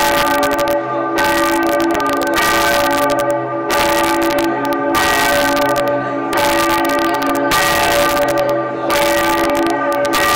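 Church bells ringing, struck about once every second and a bit, their notes ringing on between strokes.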